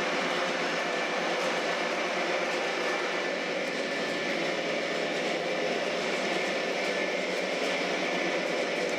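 MTH Premier O-scale CSX AC4400CW model locomotive running, its Proto-Sound 3.0 speaker playing a steady diesel engine sound.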